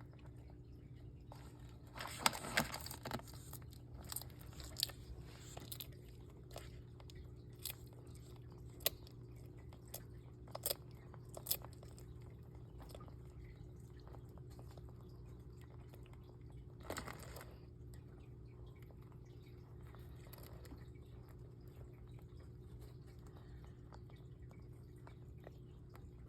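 Bearded dragons chewing hard-shelled patent leather beetles: a quick run of loud crunches about two seconds in, scattered single cracks over the next ten seconds, and one more crunch past the middle, over a steady low hum.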